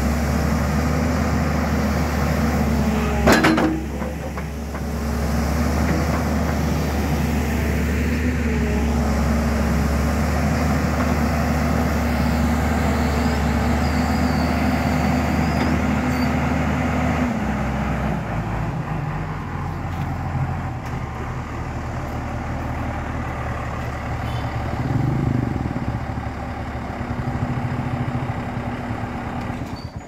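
JCB crawler excavator's diesel engine running steadily while the machine works its boom and swings. A sharp knock comes about three seconds in, and the engine note drops a little past halfway.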